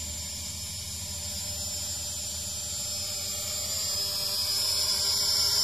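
Hubsan X4 H502S Desire quadcopter's motors and propellers whining steadily as it hovers, growing a little louder and brighter toward the end.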